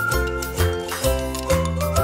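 Background music: a light, jingly tune with pitched notes over a bass line and a steady beat.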